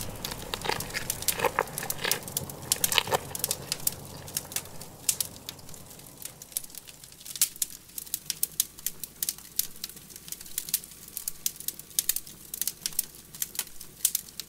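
A burning smartphone's flames crackling, with irregular sharp snaps and pops throughout. A music tail fades out in the first few seconds.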